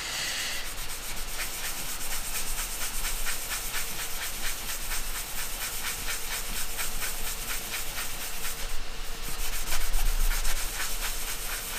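Cloth rubbing gritty abrasive polishing paste (Yorkshire Grit) back and forth over a cast resin-and-wood jewellery blank, a scratchy rubbing in quick strokes of about four a second. This is the first abrasive-paste stage, working out the fine sanding scratches.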